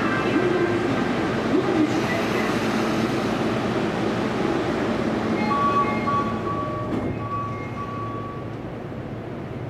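Inside a Toei 10-300 series subway car at a station stop: steady train and station noise, with a run of short chime tones around the middle. A clunk comes about seven seconds in, after which it turns quieter.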